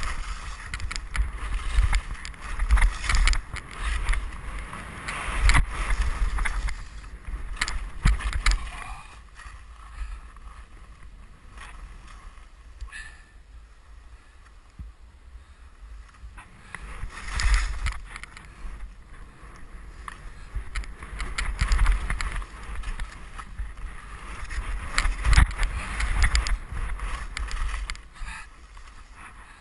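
Skis hissing and scraping through snow in a series of turns, the swooshes coming in waves with quieter gliding between, over a low rumble of wind buffeting the camera microphone.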